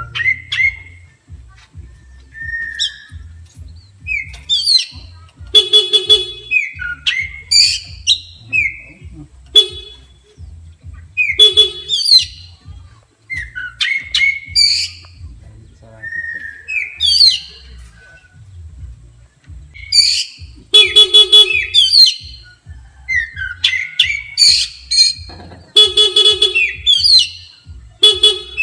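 Oriental magpie-robin (kacer) singing agitatedly: a loud, varied run of quick rising and falling whistles and chirps, broken four times by a short, harsh, buzzy honk-like note.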